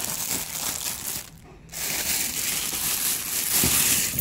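Clear plastic packaging bag crinkling as it is handled, with a brief lull about a second and a half in.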